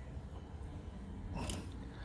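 Vise-grip pliers worked on a seized brass valve-stem nut on a tractor rim, a brief metal click about a second and a half in over a low steady rumble; the nut is not coming loose.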